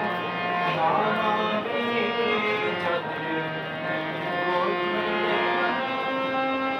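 Harmonium playing a slow melody of held reed notes over a sustained low drone.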